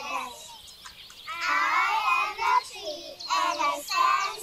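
A group of young children singing together in unison. There is a short break about half a second in, and the singing picks up again at about a second and a half.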